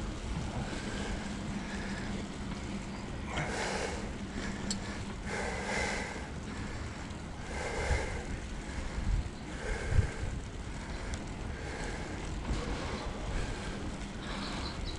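Wind buffeting an action camera's microphone over a steady low rumble from a bicycle rolling along, with a few short swells of noise and a single knock about two-thirds of the way through.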